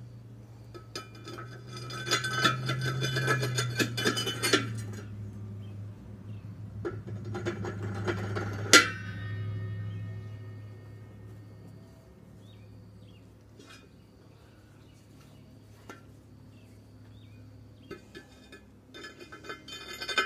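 Steel disc harrow blades being slid down a vertical shaft: metal scraping and clinking in two long runs, the second ending in a sharp clang that rings briefly, and another short scrape near the end. A steady low hum runs underneath through the first half.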